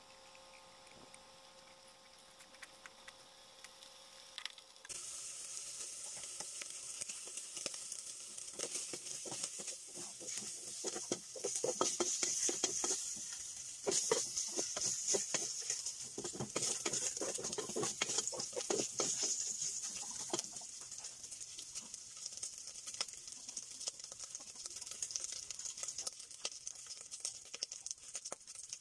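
Pork cubes frying in an aluminium pot, sizzling and crackling in their own fat. The sizzle starts about five seconds in, and a wooden spatula stirs and scrapes the pot through the middle stretch, making it louder and busier.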